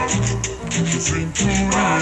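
Cumbia music: a bass line under a melody, with a quick steady percussion beat of about four strokes a second.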